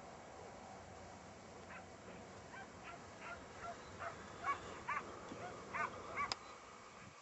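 A pack of hare-hunting scent hounds baying and yelping, several overlapping calls. The calls start faintly and grow louder, with a sharp click near the end, over a steady background hiss.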